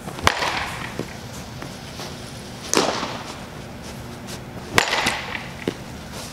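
Baseball bat hitting balls off a batting tee: three sharp cracks about two seconds apart, each ringing briefly, with a few lighter knocks between them.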